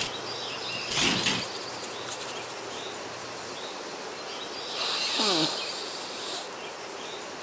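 Outdoor ambience with faint scattered bird or insect chirps over a steady hiss. There is a brief swell of noise about a second in, and a louder rushing sound about five seconds in with a falling whistle inside it.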